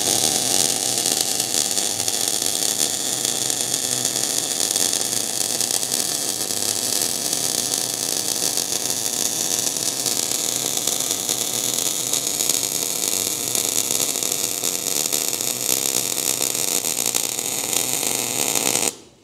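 MIG/MAG welding arc with 0.9 mm solid wire under shielding gas, laying a straight bead on steel tubing in a push direction: a steady, even crackle and hiss that stops suddenly about 19 seconds in as the torch trigger is released.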